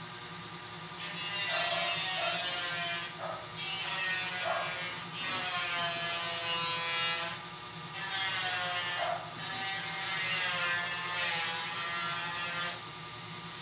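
A small motor-driven device switched on in five bursts of about one to three seconds each, its pitch wavering, over a steady low hum.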